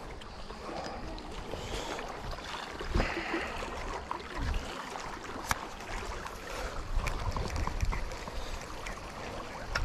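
Water lapping and wind rushing on the microphone, with a few scattered light clicks and knocks.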